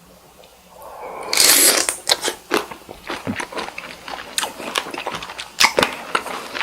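Close-miked eating sounds of cocktail shrimp: a loud bite about a second and a half in, then chewing with many irregular wet clicks and crackles.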